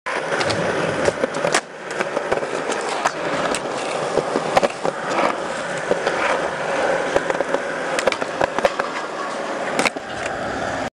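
Skateboard wheels rolling, with several sharp clacks of the board hitting the ground. The sound cuts off abruptly near the end.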